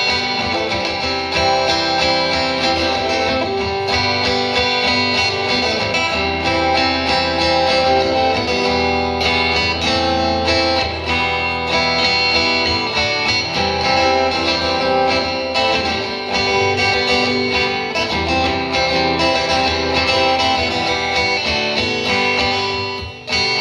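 Solo acoustic guitar playing an instrumental passage with no singing, amplified live, dropping away briefly near the end.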